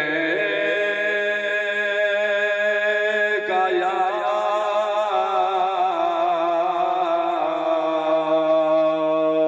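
A man's voice chanting salawat (durood, 'sallallahu…') in long drawn-out, wavering notes, amplified through a microphone and loudspeaker, with a short break about three and a half seconds in.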